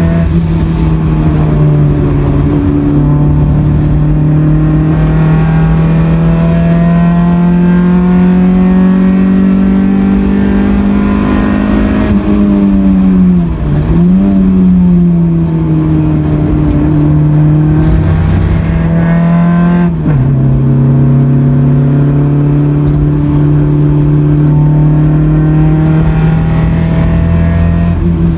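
Honda Accord CB7's engine under hard track driving, heard loud from inside the cabin. The pitch climbs steadily with two sudden drops from gear changes, one about a second in and one about twenty seconds in. In the middle the revs fall and pick up again through a corner.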